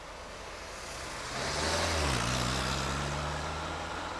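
A motor vehicle passing close by. Its engine note grows louder, drops in pitch as it goes past about two seconds in, and then fades away.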